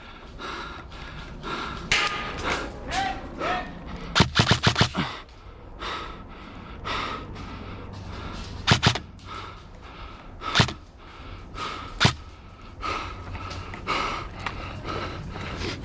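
Airsoft gunfire: a quick string of about six shots about four seconds in, followed by single shots a second or two apart.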